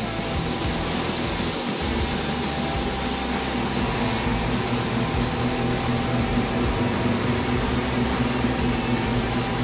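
Gravity-feed paint spray gun hissing steadily on compressed air while spraying base coat onto a car body, over a steady low hum.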